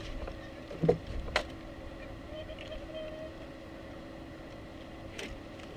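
Boat-deck sounds while a fish is fought and netted: a steady hum, with a few sharp knocks and clicks about a second in and again near the end.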